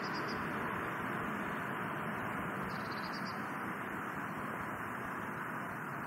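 Steady outdoor background hiss at the lakeshore, with two faint, brief high chirps: one at the start and one about three seconds in.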